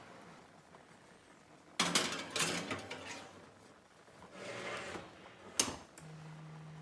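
Kitchen handling noises: dishes and utensils clattering and being moved about, then a sharp click. A low steady hum starts just after the click, near the end.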